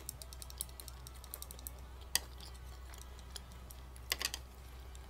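Close-miked chewing of a sushi roll (kimbap): many small, irregular wet mouth clicks, with a few louder clicks about two seconds in and around four seconds.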